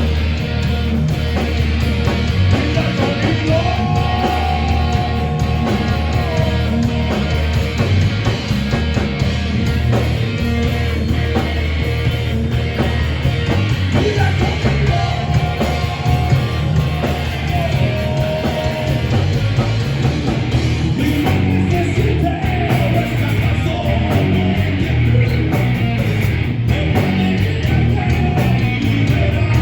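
A band playing loud rock music live, with electric guitar and a heavy, steady low end throughout.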